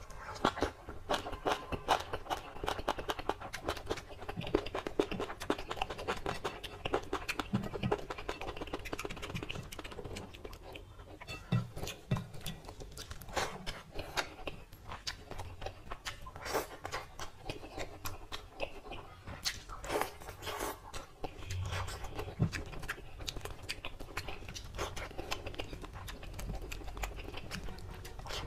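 Close-miked chewing of a mouthful of rice and curry eaten by hand, with many quick, irregular wet clicks.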